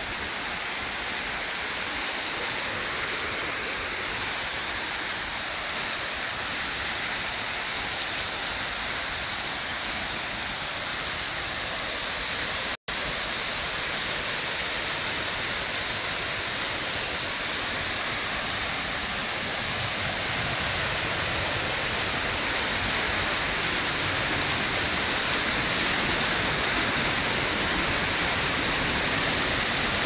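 Steady rush of water from the Shaki waterfall and the stream flowing below it. It grows a little louder and fuller in the second half, and cuts out for an instant partway through.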